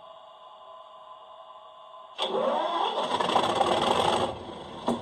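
A Class 37 model locomotive's DCC sound decoder plays the English Electric diesel's start-up through the model's small speaker: a faint steady hum, then about two seconds in a sudden loud engine start with sweeping pitch that dips back after another two seconds, and a sharp click near the end before the engine sound resumes. The sound plays without cutting out, with the decoder's top-volume CV 63 lowered from 192 to 150.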